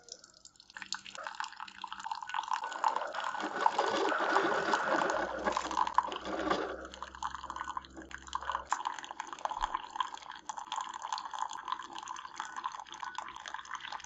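Keurig K-Slim single-serve coffee maker brewing an 8-ounce cup, coffee pouring and dripping into a mug. It builds up over the first few seconds, is loudest around the middle, then settles into a steadier trickle.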